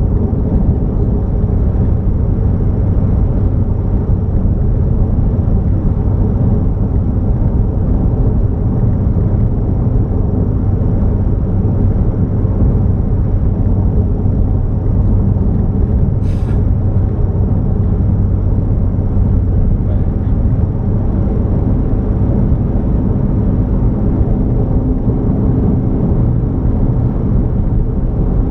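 Vehicle driving at steady speed: a continuous low engine and road rumble. A single brief tick is heard about halfway through.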